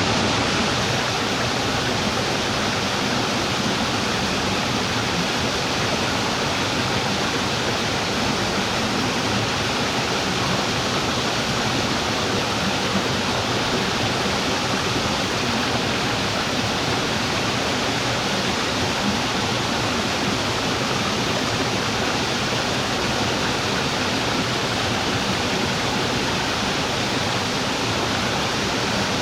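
Small mountain-stream waterfall: water falling and splashing in a steady, even rush.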